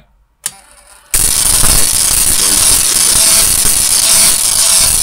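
High-voltage arc from a car ignition coil crackling and buzzing up a homemade Jacob's ladder. It starts abruptly about a second in, just after a small click, and then holds a loud, steady buzz.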